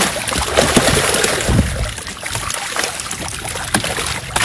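A mass of fish thrashing in a net in shallow water, splashing and churning without pause, with a dull thump about one and a half seconds in.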